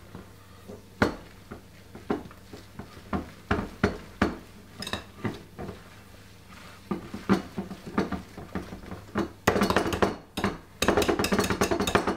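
Metal balloon whisk mixing flour and cocoa powder into chocolate cake batter in a glass bowl, its wires clinking and scraping against the glass. Scattered taps at first, becoming fast, steady whisking in the last few seconds.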